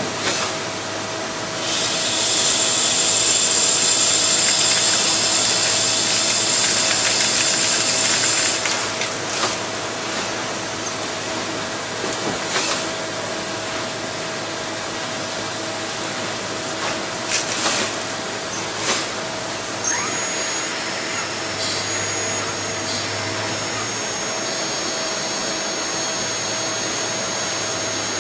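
Hardinge T42 CNC lathe running, a steady machine hum under hissing noise that grows louder for several seconds near the start. A few sharp clicks follow, and about two-thirds of the way through a thin, high steady whine sets in.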